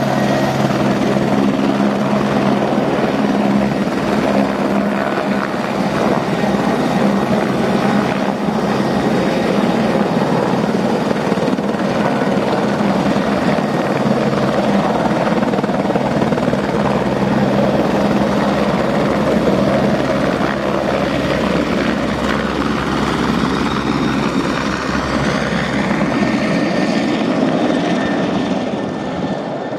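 Twin-engine Aérospatiale AS355F2 TwinStar helicopter hovering and then flying off, its main rotor and turbines running steadily. The sound drops a little near the end as it moves away.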